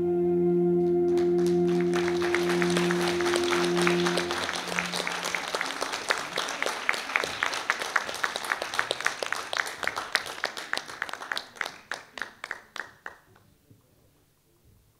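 A song's last held note rings on and fades out about four seconds in, while audience applause breaks out about a second in. The clapping thins out and stops shortly before the end.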